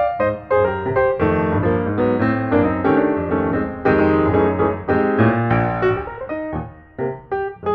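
Background piano music: a lively run of notes over a bass line, thinning out briefly about seven seconds in before the notes pick up again.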